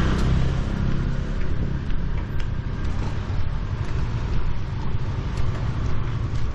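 Outdoor street ambience: a steady low rumble with a few faint ticks.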